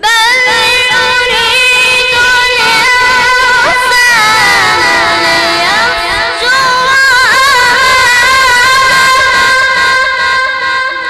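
A boy's high voice in melodic Quran recitation (tajwid), drawing out one long, ornamented melismatic phrase. The pitch dips lower about halfway through, then climbs back and holds the higher note.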